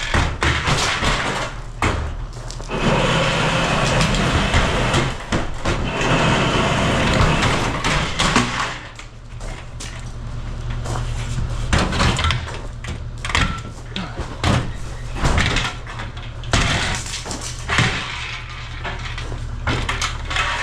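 Caterpillar 306 excavator's engine running steadily while it tears down a single-wide mobile home. Wood and building material crack and crash many times at irregular intervals.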